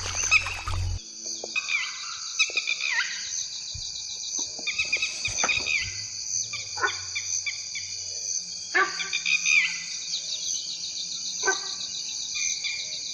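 Steady chorus of crickets and other insects, with repeated short, high squeaky calls that fall in pitch, coming at irregular intervals.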